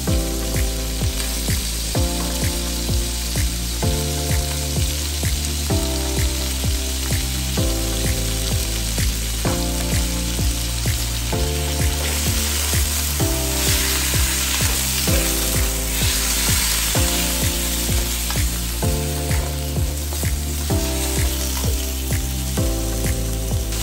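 Chicken pieces sizzling in hot oil in a stainless steel wok and being stirred, their fat rendering; the sizzle swells about halfway through. Background music with a steady beat plays throughout.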